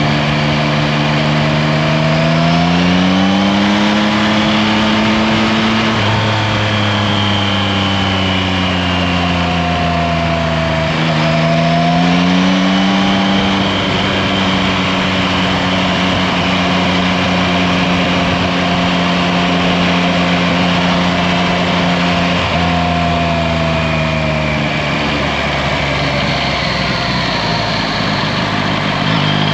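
Yamaha Tracer 9 GT's 890 cc inline-three engine running under way. Its note rises as the bike accelerates about three seconds in and again around twelve seconds, holds steady in between, and falls back around ten seconds and again around twenty-three seconds.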